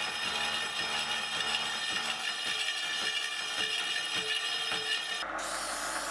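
Elliott Junior horizontal milling machine running a slitting saw through a welded metal clamp part, a steady mechanical cutting noise. About five seconds in, an aerosol lubricant spray starts hissing.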